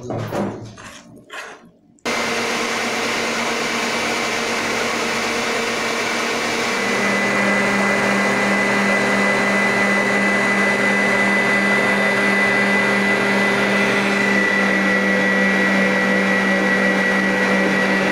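A few short knocks, then an Oster stand mixer starts and runs steadily with its wire whisk beating egg whites into Italian meringue as hot sugar syrup is poured in. About 7 s in, the mixer's hum shifts and gets a little louder.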